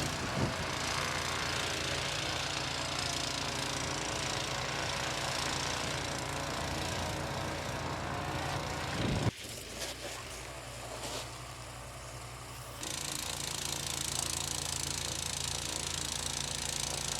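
Snowblower engine running steadily with a wide rush of noise. The sound drops abruptly about nine seconds in and picks up again about thirteen seconds in.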